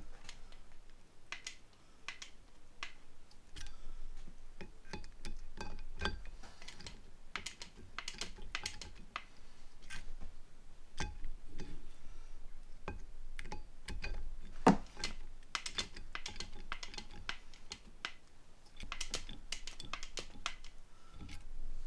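Hand grease gun being pumped, a run of irregular clicks and clacks with one sharper click about two-thirds of the way through, as it forces grease through a needle injector into a tractor halfshaft roller bearing.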